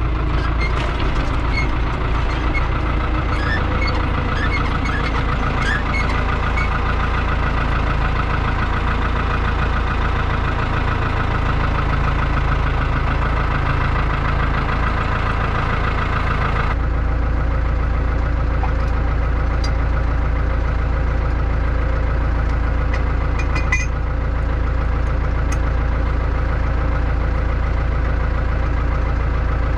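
New Holland TD85 tractor's turbo diesel engine idling steadily, with a few light metal clinks from the rear three-point hitch in the second half as the harrow is hooked up.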